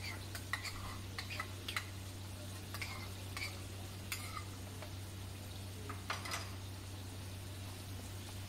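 A spoon stirring chicken in a karahi, with scattered clicks and scrapes against the pan over a faint sizzle. The clicks stop about six and a half seconds in, and the sizzle carries on.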